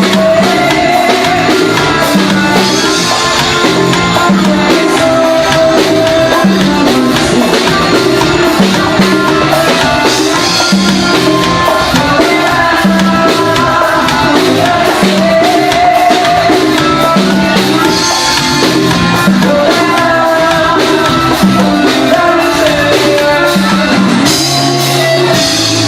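Forró music playing at a steady, loud level, with a regular beat and melody lines.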